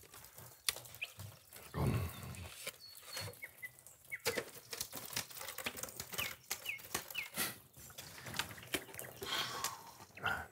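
Outdoor animal ambience: short bird chirps and farm-animal noises, with scattered clicks and a low rumble about two seconds in.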